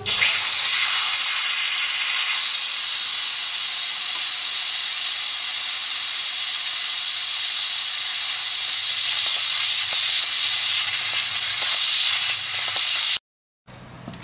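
Compressed air blasting out of the opened water-drain valve at the bottom of a home-built air compressor's tank. It is a loud, steady hiss that starts abruptly and cuts off suddenly near the end.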